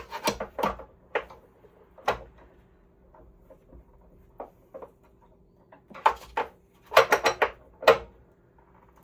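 A 12-point socket popping and snapping off the hex head of a rusted anode rod in a Rheem electric water heater instead of turning it. There is a cluster of sharp metallic clicks at the start, one about two seconds in, and a quick run of them from about six to eight seconds. The owner suspects the 12-point socket is not a tight enough fit to grip the hex.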